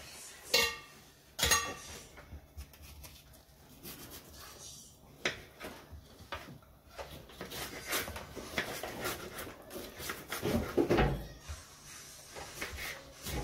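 Kitchen knife cutting a bell pepper on a wooden cutting board: irregular knocks of the blade against the board, two sharp ones in the first couple of seconds and a louder knock a little before the end.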